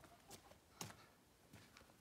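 Near silence: a few faint, short ticks, the clearest a little under a second in.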